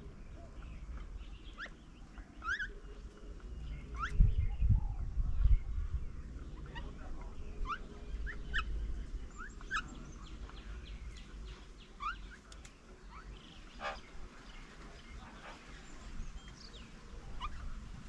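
Wild birds calling in short, scattered chirps and whistles, over a low rumble of wind on the microphone that gusts loudest about four to six seconds in.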